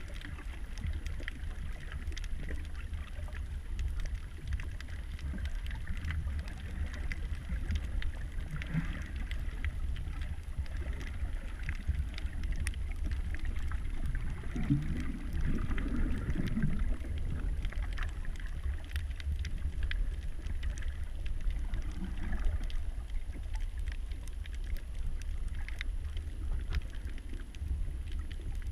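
Muffled underwater rumble picked up by a camera in a waterproof housing while it moves over a rocky seabed, with scattered faint clicks and crackles. The rumble grows louder for a couple of seconds about halfway through.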